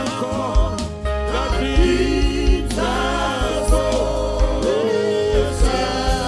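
Gospel worship music: voices singing with a backing band, drum and bass thumps underneath.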